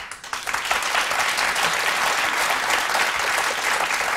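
Studio audience applauding: dense clapping that swells quickly at the start and then holds steady.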